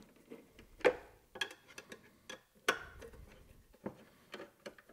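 A handful of scattered light clicks and taps from an Allen wrench working the bolts of box clamps as they are loosened, with the loudest clicks about a second in and near the three-second mark.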